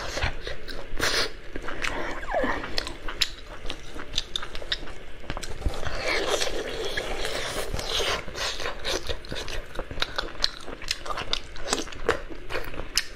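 A person eating close to the microphone: biting and chewing, heard as a run of many short sharp clicks that is busiest about six to eight seconds in.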